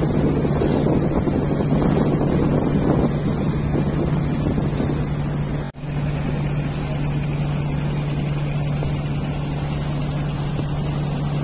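Steady low engine drone of the river vessel carrying the camera, with wind buffeting the microphone, heavier in the first half. The sound drops out for an instant about six seconds in.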